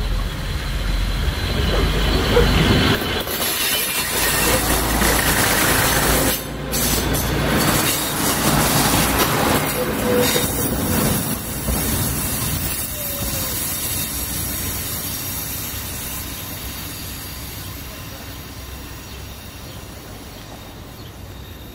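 ALn 668 diesel railcar train passing close at speed: engine running and wheels rushing over the rails, loudest in the first half and fading steadily as it moves away.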